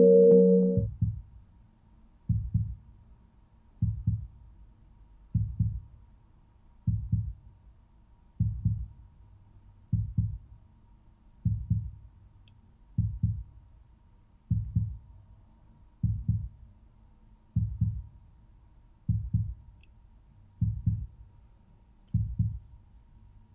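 A slow, steady heartbeat sound: low thumps about every one and a half seconds, roughly forty a minute. It follows the last held tones of the intro music, which stop about a second in.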